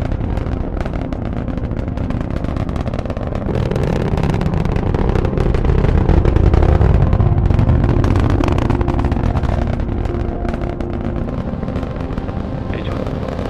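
Rocket engine sound effect: a steady low rumble of exhaust that swells to its loudest about halfway through, then eases off.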